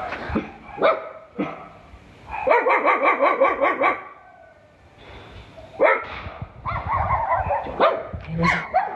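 Dog barking: a few short sharp barks at first, then a run of barking, a short lull, and more barking in the second half.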